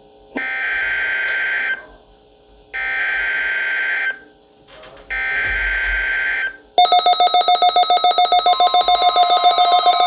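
NOAA Weather Radio SAME alert header over weather radio speakers: three harsh digital data bursts of about a second and a half each, with short gaps between them. About seven seconds in, the receivers' own alert alarms set off, a loud, rapid electronic beeping in several tones. This is the sign that they have decoded a Required Weekly Test.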